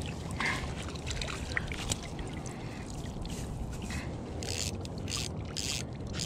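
Landing net being lifted out of the lake with a small trout in it: water splashing and streaming off the mesh, ending in a run of short splashy hisses about every half second. A steady low rumble of wind and water lies underneath.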